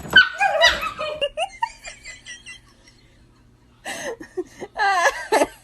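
A person laughing in high-pitched giggles, in two bouts with a quiet pause between them.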